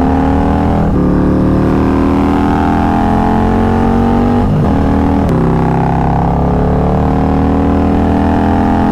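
Motorcycle engine pulling hard under acceleration, its pitch climbing steadily; it shifts up about a second in and again about halfway through, the pitch dropping at each shift and then climbing again.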